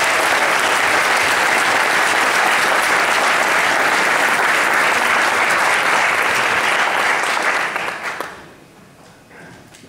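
Audience applauding steadily, the clapping dying away about eight seconds in.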